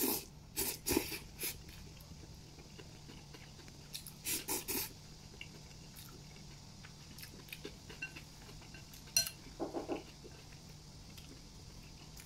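Oil-splashed wheat noodles slurped from a bowl with chopsticks: short hissing slurps in clusters, in the first second, again around four seconds in and again near ten seconds, with quieter chewing between.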